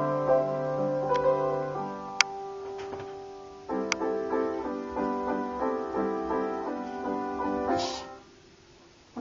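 Piano playing sustained chords, with a couple of sharp clicks along the way. Near the end a short hiss-like burst of noise comes and the playing stops.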